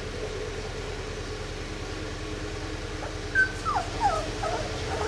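Two-week-old Labrador retriever puppies whimpering: several short, high squeaks that fall in pitch, starting a little past halfway, over a steady low hum.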